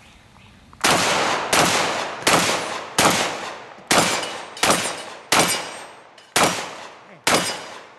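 Mossberg 930 JM Pro semi-automatic 12-gauge shotgun firing nine rounds in quick succession, about one every three-quarters of a second, starting about a second in, each shot trailing off before the next.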